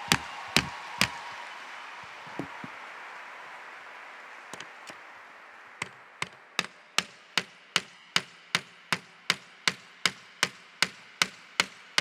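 Hammer blows nailing one cross onto another: three even blows, a few light taps, then from about six seconds in a long run of steady blows, about two and a half a second.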